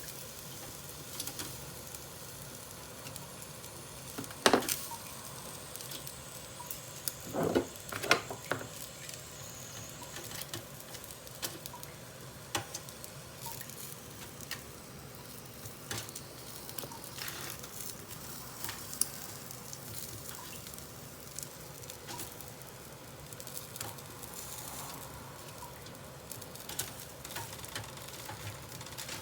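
Yakitori skewers sizzling and crackling on an Iwatani tabletop gas grill, a steady hiss with many small pops. A few sharper knocks stand out, one about four seconds in and a cluster around seven to eight seconds in.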